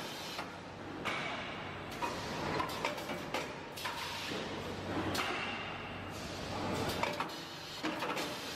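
Aluminium ingot casting line running, with hard metal-on-metal clanks and knocks at irregular intervals, some ringing briefly, as the cast ingots travel along the mould conveyor.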